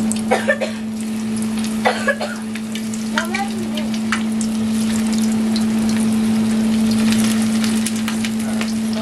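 Plantains frying in hot oil, sizzling steadily with fine crackling pops, over a steady low hum.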